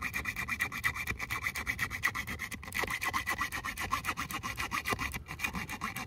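Leatherman Surge multitool saw blade sawing a stick in quick, even back-and-forth strokes, a rasping sound.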